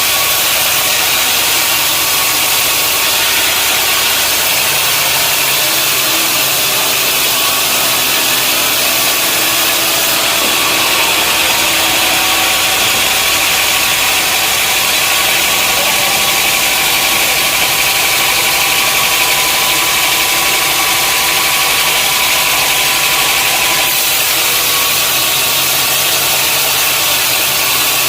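Sawmill machinery running steadily: a constant motor hum under a loud, even high hiss.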